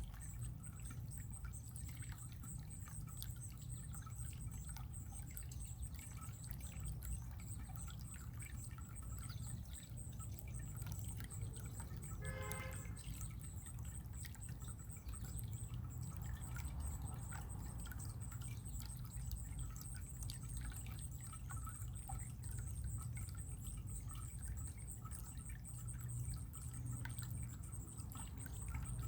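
Running water trickling and dripping in a steady, even flow. A short pitched call comes once, about twelve seconds in.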